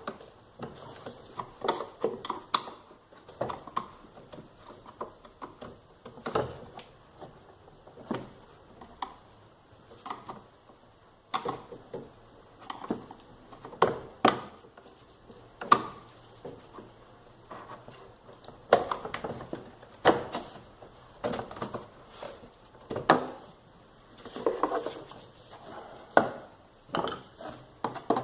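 Irregular clinks, taps and knocks of hand tools and metal parts being handled, a few every second.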